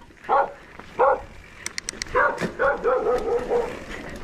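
Dog barking: two short barks about a second apart, then a quicker broken run of barks and yips.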